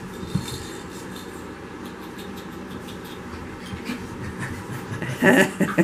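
French Bulldog puppies scuffling and playing on a fleece blanket: a steady low scuffle with scattered small taps and clicks, and a short louder burst about five seconds in.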